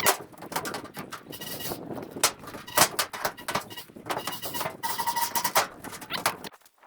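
Loose sheet-tin roofing on a wooden pen frame rattling and knocking as it is worked on, with two steady whining tones of about half a second and a second and a half. The sound stops abruptly near the end.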